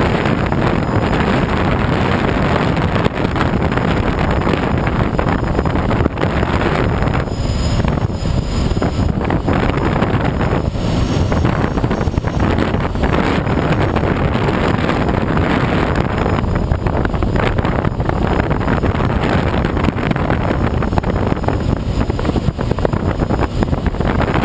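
Steady rush of air past a Schweizer SGS 2-33A glider in flight, with wind buffeting the microphone; there is no engine.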